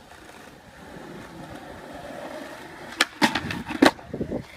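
Skateboard wheels rolling on concrete, then about three seconds in a quick run of sharp wooden clacks as the board is popped and lands.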